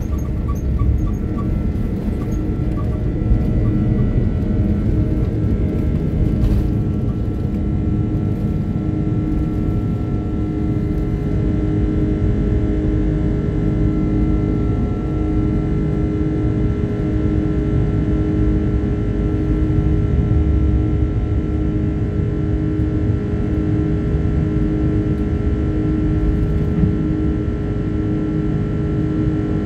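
Engines of an Airbus A330-300 (Rolls-Royce Trent 700s) at takeoff thrust, heard from a cabin window seat over the wing. A loud, steady rumble with a steady hum carries through the end of the takeoff roll, the liftoff and the first of the climb.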